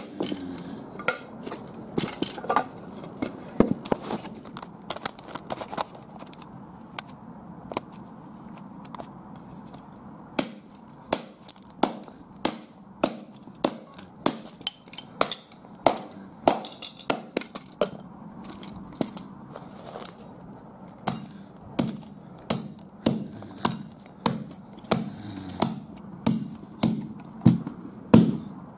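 A hatchet striking and smashing a small plastic pull-back toy car on a carpeted floor. The sharp chopping blows come irregularly at first, then about ten seconds in settle into a steady run of one or two a second.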